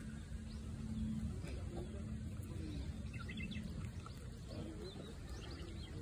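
Outdoor ambience with a steady low rumble, and a few short bird chirps about three seconds in.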